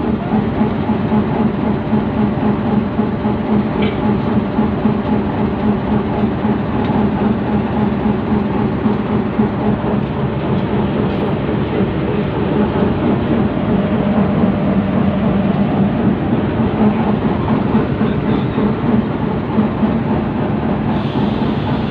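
Diesel locomotive engine idling, a loud, even hum that stays the same throughout.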